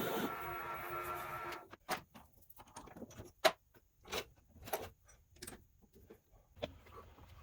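A workshop power tool's motor running with a steady whine, cutting off about a second and a half in. Scattered clicks and knocks follow, the loudest about three and a half seconds in.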